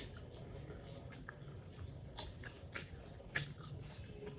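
Faint, scattered light clicks and crackles, a few a second, over quiet room tone.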